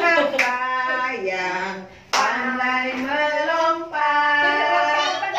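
A group of young children singing a song together with women's voices, with a few hand claps.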